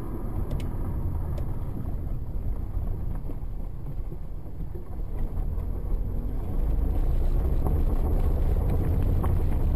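Low rumble of a car and wind buffeting the dashcam microphone, stepping up in loudness about two-thirds of the way through.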